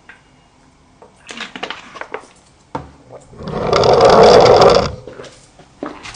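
A girl snoring: one long, loud rasping snore about three and a half seconds in, lasting about a second and a half, with softer breathing noises before it.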